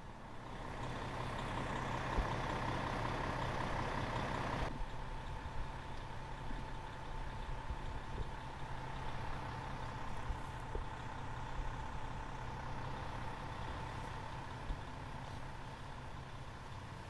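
A vehicle engine running steadily, a low hum with a thin, high, steady tone above it.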